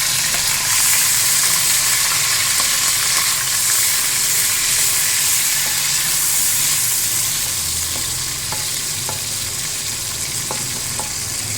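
Chopped onions frying in hot oil in a pan: a steady sizzling hiss, with scattered sharp clicks in the second half.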